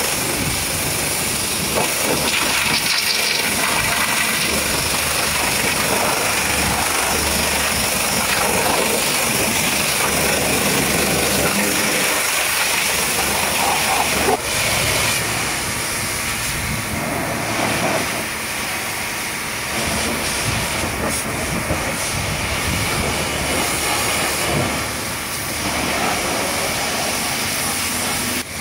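High-pressure water jet spraying steadily onto a truck, a dense hiss that breaks off for a moment about fourteen seconds in.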